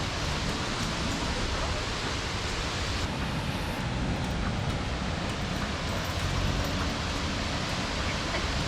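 DeSoto Falls heard from the trail a short way off: a steady, even rush of falling water, loud for its distance.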